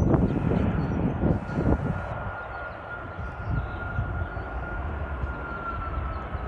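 Boeing 737-700's CFM56-7B jet engines during the landing rollout, heard across the airfield: a steady high whine over a low rumble. The rumble is loudest in the first two seconds, and the whine drops slightly in pitch near the end.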